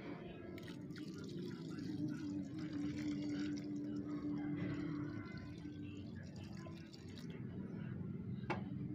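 Water being poured onto potting soil in a plastic bucket planter, watering a freshly transplanted plant.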